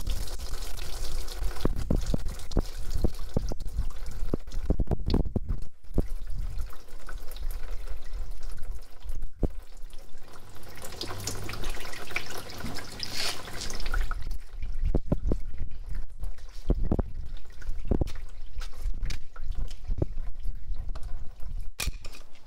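Engine coolant draining out of a disconnected radiator hose into a catch container, pouring and dripping, with scattered knocks and clicks of handling.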